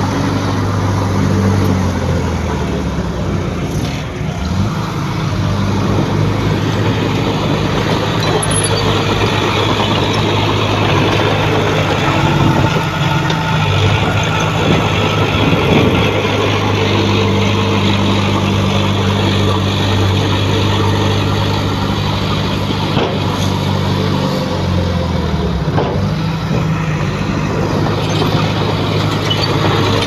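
Heavy diesel engine of construction machinery running steadily, its pitch shifting up and down a few times.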